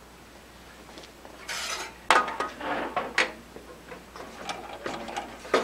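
A dial-indicator jig on a metal bar being set down on a table saw top and slid in the miter slot: a brief scrape, a sharp metal knock just after two seconds in, then scattered clinks and rubbing of metal on metal.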